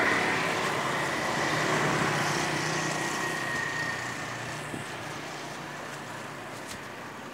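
A motorcycle passes close by and its engine fades away over several seconds, over a steady haze of street traffic noise.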